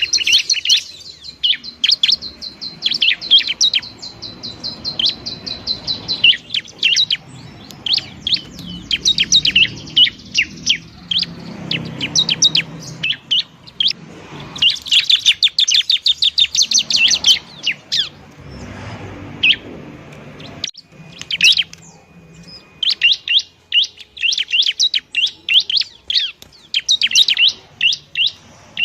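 Bar-winged prinia (ciblek) singing loudly: fast runs of sharp, high chirps in repeated bursts with short pauses, and a held high note in the first few seconds.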